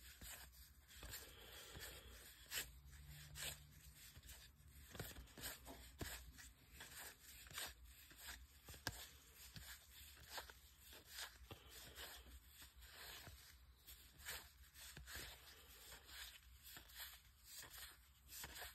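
Faint, repeated soft flicks and slides of 2022 Topps Heritage baseball cards, each peeled off the front of a stack and dropped onto another, about one every half second to second.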